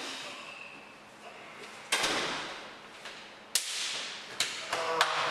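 A door opening with a faint creak, then a loud hand-clasp slap about two seconds in and several sharp slaps on the back as two men hug, with excited voices starting near the end.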